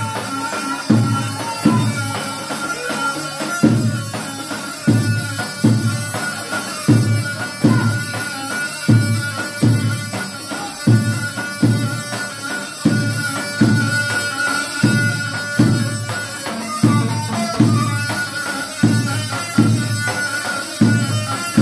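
Dabke music played on a large tabl drum, a heavy stroke about once a second with lighter strokes between. Over it a mijwiz reed pipe plays an unbroken, shrill melody.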